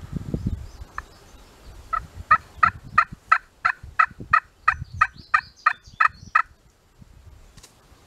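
A run of about fourteen turkey yelps, evenly spaced at about three a second, beginning about two seconds in after a single yelp and stopping after six seconds. Low rustling of brush at the start.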